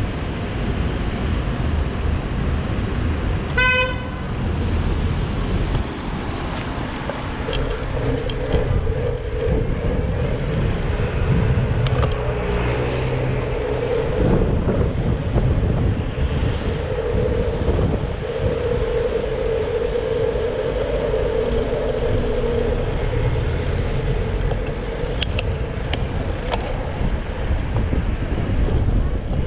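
Traffic and road rumble heard from a moving bicycle, with one short horn-like beep about four seconds in and a steady hum that sets in at about seven seconds.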